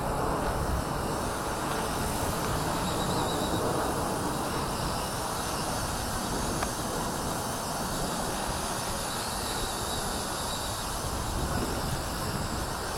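Gusty wind rushing over the microphone in a steady noise, perhaps with a faint high whine now and then.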